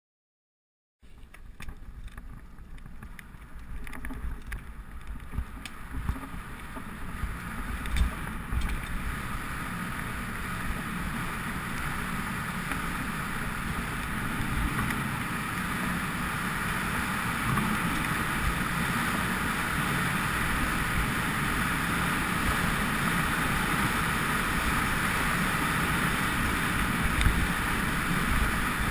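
Mountain bike riding down a rough dirt trail, heard through a GoPro Hero2: wind rushing over the microphone with tyre rumble and occasional knocks from bumps. It starts about a second in and grows louder as the bike gathers speed.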